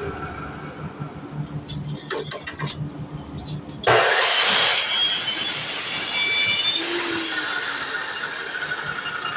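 A few light clicks of handling, then a DeWalt miter saw starts suddenly about four seconds in and runs loudly, its high whine slowly falling in pitch.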